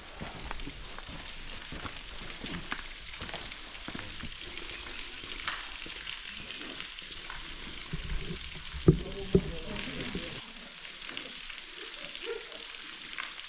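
Footsteps crunching and scraping over loose slate rock, with many small ticks, a louder knock about nine seconds in, and a steady crackling hiss underneath.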